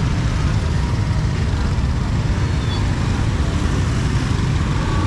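Steady road traffic noise, a continuous low rumble.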